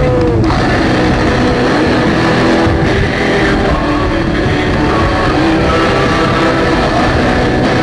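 Loud rock music with guitar, playing steadily.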